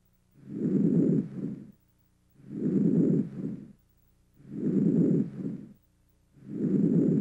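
Normal vesicular breath sounds heard through a stethoscope: four soft, low-pitched breaths about two seconds apart. Each is a longer inspiratory sound followed, with no gap, by a shorter, fainter expiratory part.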